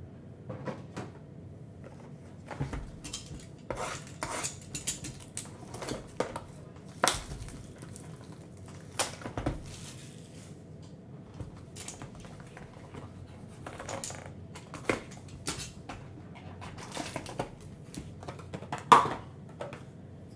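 Cardboard trading-card box being handled on a cloth playmat: scattered taps, scrapes and rustles as the box is set down, its lid opened and the foil-wrapped pack slid out. A sharper knock comes near the end.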